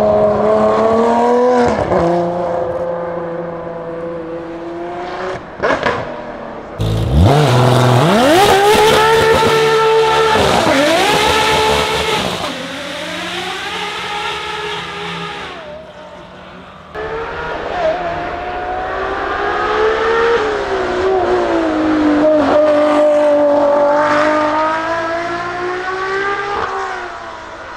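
Ferrari 599XX Evo's V12 engine revving hard and dropping back again and again. In the middle it is joined by a loud tyre squeal as the rear tyres spin in a smoky burnout.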